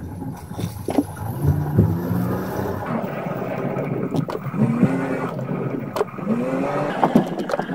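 Car driving slowly, heard from inside the cabin: steady engine and road noise, with a few sharp clicks and some brief gliding tones.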